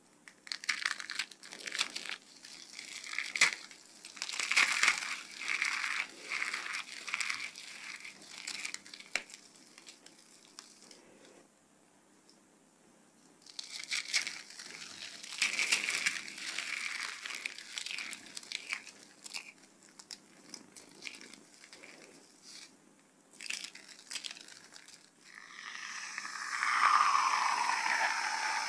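Hands crushing and crumbling a ball of dried soap curls: dense, crisp crunching and crackling in spells, with a pause of about two seconds in the middle. Near the end an aerosol foam can sprays foam into a plastic cup, a steady hiss of about three seconds that cuts off suddenly.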